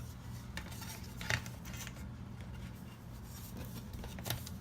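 Small clicks and rubbing of a laptop SO-DIMM memory stick being slid into its slot and pressed down to lock in place, the sharpest click about a second in, over a low steady hum.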